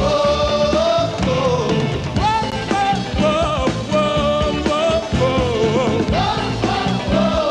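Rock song played by a band, with a steady beat under a lead vocal line.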